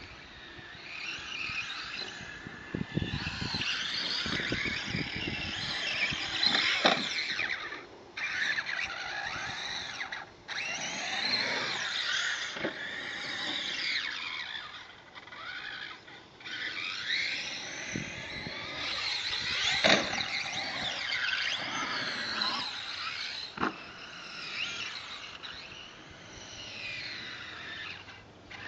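Brushless 2400KV Turnigy four-pole motor of a Traxxas Summit RC truck on a 4S LiPo, whining high and gliding up and down in pitch as the throttle is worked. The whine drops out briefly a few times. Several sharp knocks are heard as the truck lands jumps.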